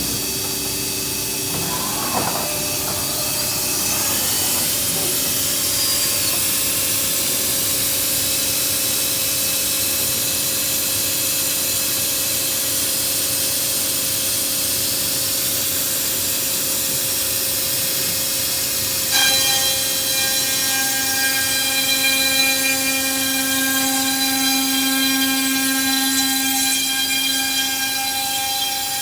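Morbidelli Author 430S CNC wood router running, with a steady hiss and a held whine. About two-thirds of the way through, a stronger set of higher whining tones comes in and lasts until just before the end.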